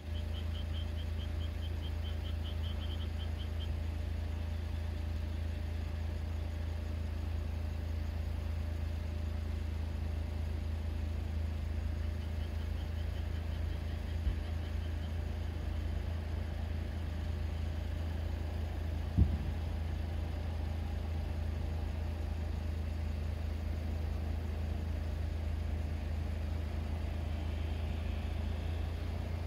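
Steady low hum of an engine idling nearby, with a single dull thump about nineteen seconds in.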